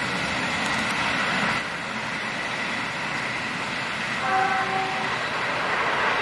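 Indonesian passenger train of stainless-steel coaches rolling away along the track, a steady rumble of wheels on rails. About four seconds in comes one short horn blast, faint and distant, from the locomotive at the far end.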